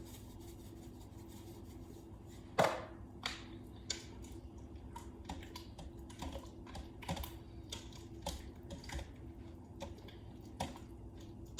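Scattered light clicks and taps of kitchen utensils at an Instant Pot while soup is being seasoned and stirred, irregular and about two a second, the sharpest about two and a half seconds in. A faint steady hum runs underneath.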